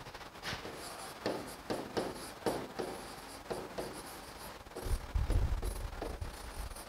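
Chalk writing on a blackboard: a run of short, irregular scratching and tapping strokes as a word is written out. A brief low rumble about five seconds in.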